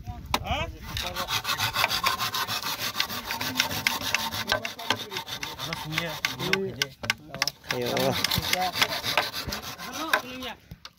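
Hand saw cutting through a thick green bamboo pole in quick back-and-forth strokes, with a short pause about seven seconds in before the sawing resumes.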